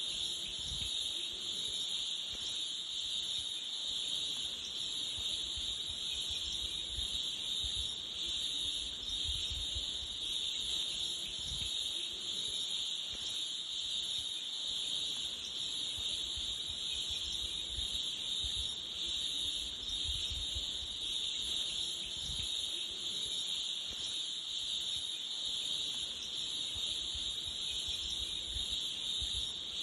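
Insect chorus in a forest: a continuous, steady high-pitched buzzing drone that does not pause or change.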